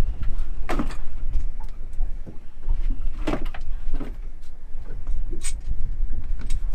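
Wind buffeting the microphone as a steady low rumble, with a few scattered knocks and clunks on a small boat, the loudest about a second in and about three seconds in.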